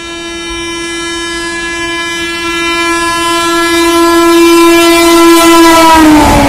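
Horn of an Indian Railways WAP-7 electric locomotive, held in one long blast as the express approaches at speed and growing louder. Near the end its pitch drops as the locomotive passes close by, and the rushing clatter of the passing train comes in.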